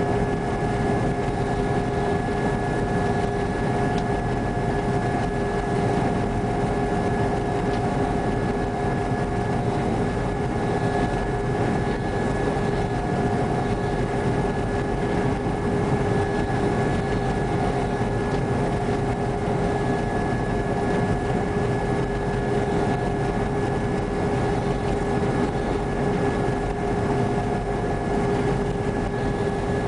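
TR95 combine harvester running steadily while combining wheat: a constant engine and machinery drone with several unchanging whining tones over it.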